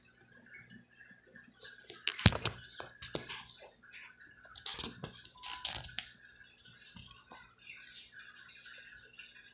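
Teacup Chihuahua puppy's claws scrabbling and pattering on a laminate floor as it runs about, with scattered sharp knocks, the loudest about two seconds in.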